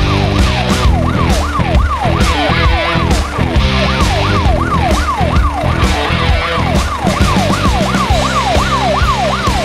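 Electronic siren sweeping quickly up and down in pitch, about twice a second, over background music with a steady beat.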